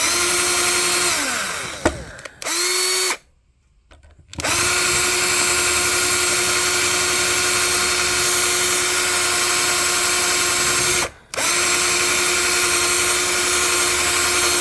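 Electric drill running with a steady high whine, drilling out the rivets that hold the filter-capacitor socket in an amplifier chassis. It winds down about a second in, runs briefly again, stops, then runs steadily for most of the rest with one short break.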